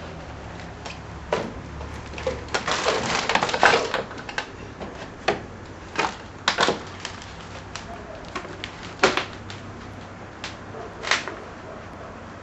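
Irregular knocks, clicks and rattles over a low steady hum: objects and fittings in a high-rise apartment rattling and creaking as the building is shaken by an earthquake. They come thick and fast a couple of seconds in, then thin out to single knocks every second or two.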